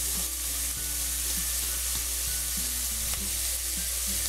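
Chopped onion sizzling in hot oil in a pot: a steady frying hiss. A quiet background melody runs underneath.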